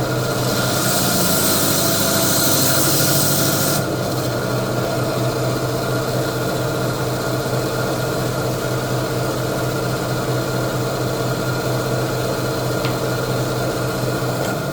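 Electric coral-fragging saw running with a steady motor hum; for the first few seconds the blade cuts into the hammer coral's stony skeleton with a loud grinding hiss, which stops about four seconds in while the saw keeps running.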